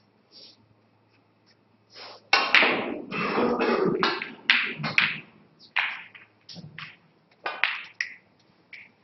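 Snooker balls knocking on the table: a dense run of loud knocks and thuds, then a series of separate sharp clicks as the cue ball strikes the pack of reds and the balls hit each other and the cushions.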